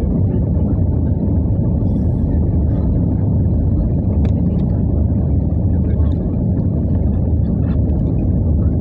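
Steady low rumble of engine and airflow noise inside the cabin of an Airbus A320 descending to land.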